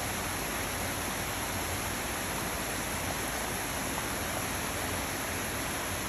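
Shallow woodland stream flowing over small riffles and stones: a steady, even rush of water.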